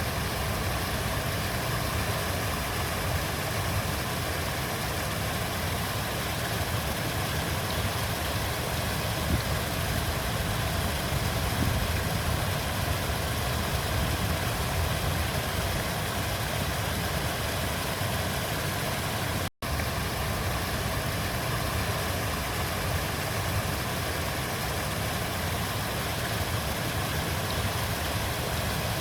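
Flowing river water, a steady, even rush with a deep rumble. About two-thirds through, it cuts out for a split second and then resumes.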